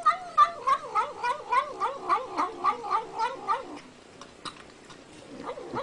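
Domestic cat growl-mewing while it eats: a quick run of short, wavering "nom nom nom" calls, about three a second. The calls stop a little before four seconds in, leaving a few faint clicks.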